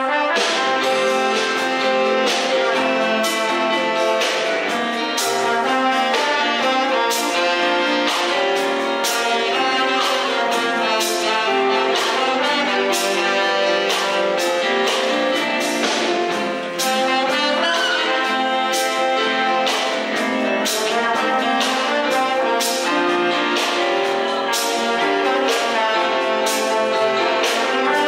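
Live band of trumpets, trombones and saxophones playing a tune over a steady beat.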